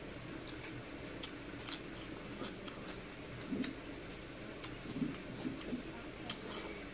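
Someone eating rice by hand from a steel plate: scattered soft clicks and smacks from chewing and from fingers gathering rice on the plate.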